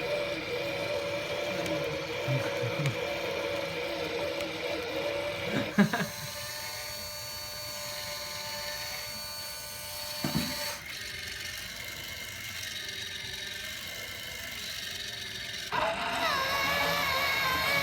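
Small high-speed spindle motor of a PCB drilling machine running with a steady whine. Its tone changes a few times, and there are short knocks about six and ten seconds in.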